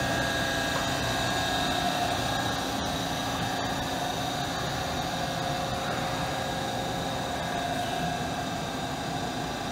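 Steady drone of running shop machinery, a CNC machining center's pumps and motors under power, with several steady whining tones over a broad hum.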